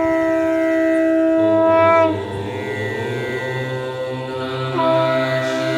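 Conch shell blown in a long, steady blast. About two seconds in the tone slides down and breaks into a weaker, wavering stretch, then comes back full a little before the end.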